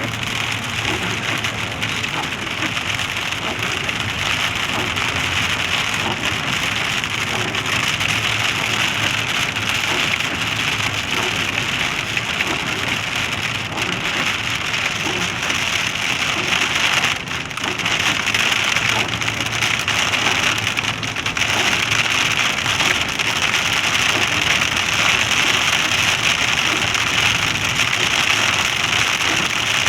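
Heavy rain falling steadily during a thunderstorm, with an even, unbroken level and only a brief lull about two-thirds of the way through.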